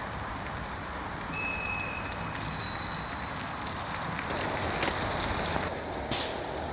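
Tram running on curved street-tram track at some distance, with a steady rumble and a couple of high, held squeals of its wheels on the rails, each lasting a second or so. A louder, rougher stretch of rail noise follows, with a sharp click near the end.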